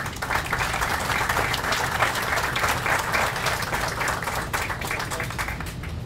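Audience applauding: dense, steady clapping that starts right away and thins slightly near the end.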